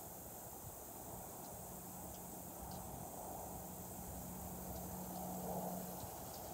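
Evening insect chorus, a steady high-pitched drone, with a faint low steady hum through the middle.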